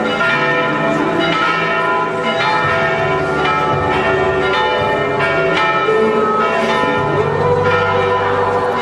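Church bells pealing, struck about twice a second, their tones ringing on and overlapping.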